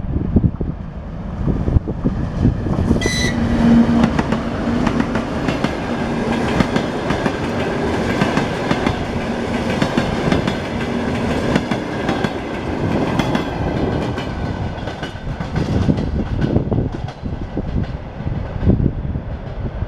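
Passenger train rolling past at close range, its wheels clicking over the rail joints, with a brief high squeal about three seconds in and a steady low hum through the first half.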